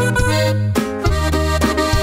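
Instrumental break of a Mexican corrido: an accordion plays the melody over a steady bass line and regular rhythmic chords.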